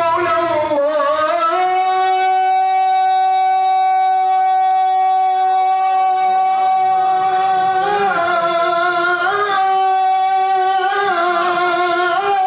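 A male munshid singing a nasheed, sliding up onto one long held note and sustaining it steadily for several seconds, then breaking into short ornamental turns before settling on the note again.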